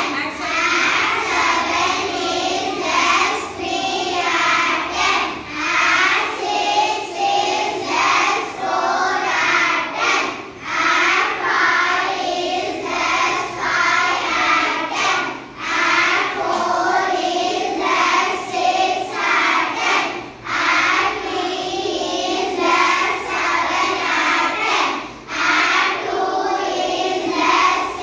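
A class of young children singing together in chorus, one continuous group song with brief breaks between phrases.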